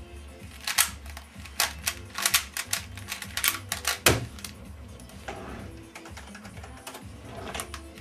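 Rapid, irregular plastic clicking of a 3x3 speedcube being turned fast, ending about four seconds in with a loud thump as the cube is put down and the hands slap the timer to stop the solve. Softer handling sounds follow.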